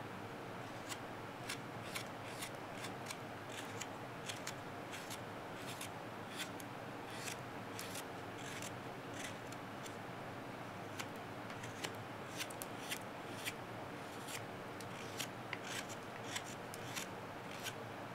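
Hook knife carving out the bowl of a birch spoon: a run of short, crisp shaving cuts, unevenly spaced at about two a second.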